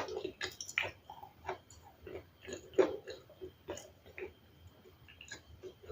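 Someone chewing ice close to the microphone: irregular crisp crunches, a few a second, some louder than others.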